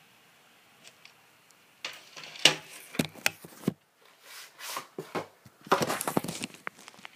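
Close handling noise from a VHS tape and its box: a run of sharp clicks and knocks about two seconds in, softer swishes, then a dense burst of scraping and rustling near the end.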